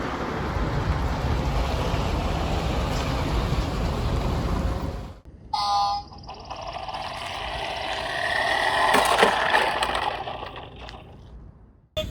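Vehicle sounds: steady engine and road noise, then after a sudden cut a short horn toot about five and a half seconds in, followed by a vehicle passing by, swelling and then fading away.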